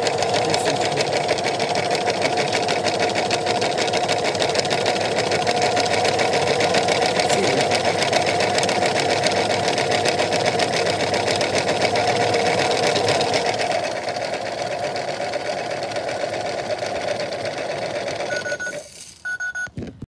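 Toy washing machine's small electric motor turning its drum on the spin cycle, a steady fast whir. It gets quieter about 14 seconds in, then stops near the end, followed by a few short electronic beeps.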